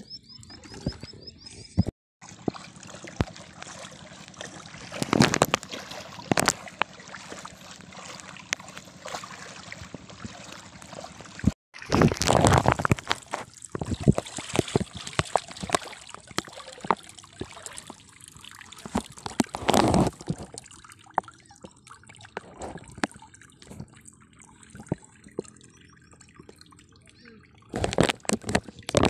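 Water sloshing and dripping as a fishing net is handled in shallow water, with people talking. Louder rushes of splashing come several times, and the sound drops out briefly twice.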